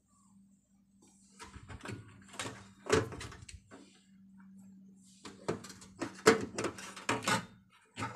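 Irregular clicks and knocks of multimeter probes and hands working against the metal ignition switch and burner parts of a gas stove, the loudest about six seconds in, over a faint steady low hum.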